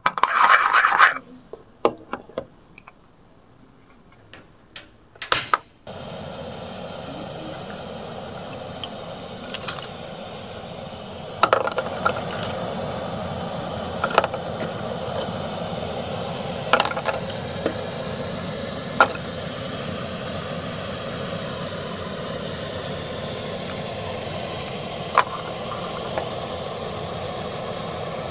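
Light clicks and taps of a small plastic pot and utensils handled on a toy stove. About six seconds in, a steady hiss starts abruptly and keeps on, with a few sharp clicks and taps over it.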